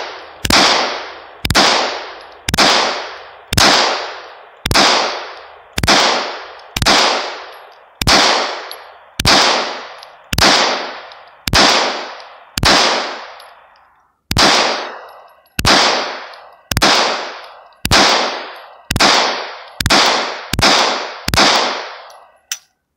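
Gen 4 Glock 17 9mm pistol fired in steady single shots, about one a second, some twenty in all with one slightly longer pause about halfway, each shot trailing off in a long echo. The pistol cycles from a 50-round drum magazine with no failure to feed.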